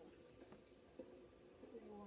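Near silence: faint room tone with a couple of light ticks and a faint low tone starting near the end.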